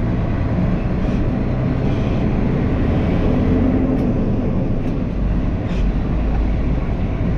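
Grain truck's engine running as it is driven, heard from inside the cab: a steady low drone with road noise.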